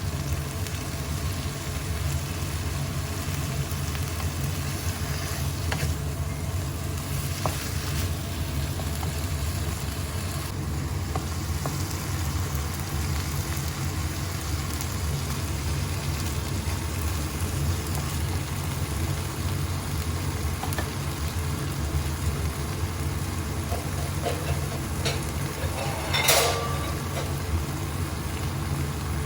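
Asparagus stir-frying with shrimp paste in a hot pan: steady sizzling with the scrape and clink of stirring, and a brief louder scrape near the end.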